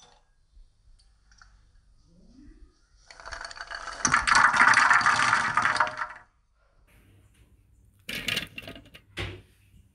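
Roasted cashew nuts poured into an empty stainless steel blender jar, clattering against the metal for about three seconds. Near the end, two shorter, quieter bumps as banana slices drop in on top of the nuts.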